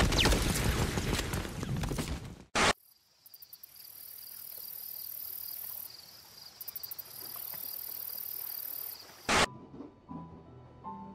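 Dubbed film sound effects changing in steps: loud rushing storm wind at first, cut off about two and a half seconds in by a brief burst of noise, then a steady high chirring of night insects like crickets with a few pulsing stretches. Near the end another brief burst, then soft melodic music notes begin.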